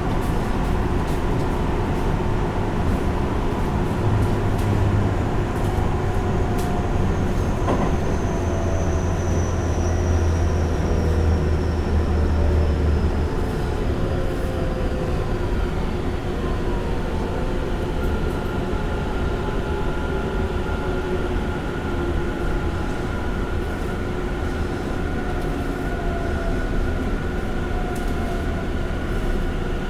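Tobu 50090-series electric train running and slowing for a station, heard from inside the car: steady rolling noise, with the motor whine sliding gradually lower in pitch as it brakes.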